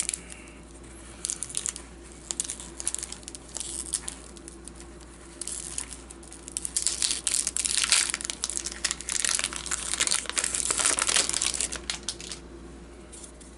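Hockey card pack wrapper crinkling and tearing as it is opened. There are scattered light crackles at first, then a dense crinkling for about six seconds in the second half, which is the loudest part.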